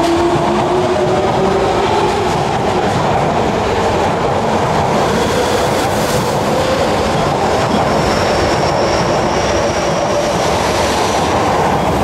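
Osaka Midosuji Line 21 series subway train pulling out of an underground station. A rising motor whine in the first couple of seconds gives way to the loud rumble and wheel clatter of the cars passing close by. A faint high squeal joins about halfway through.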